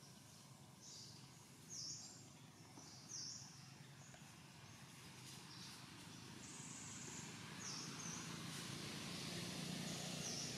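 Forest ambience: a steady hiss that grows slowly louder, with short high-pitched chirps from wild animals repeating every second or so, the loudest about two and three seconds in and a longer one past the middle.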